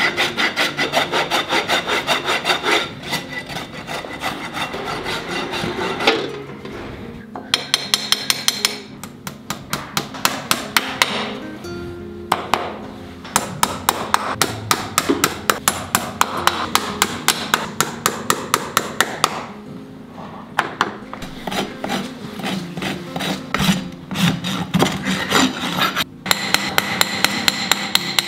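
Farrier's driving hammer striking horseshoe nails through a steel shoe into a horse's hoof and clinching them, in quick runs of sharp taps, about three a second, broken by short pauses.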